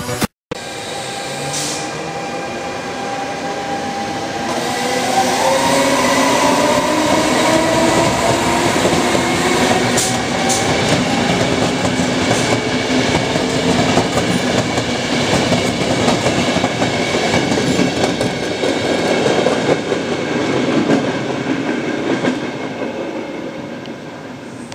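E464 electric locomotive pulling a regional passenger train out of a station and gathering speed. Its traction motors whine, rising in pitch over the first several seconds, over steady rolling noise from the wheels and coaches with occasional clicks. The sound fades near the end as the train draws away.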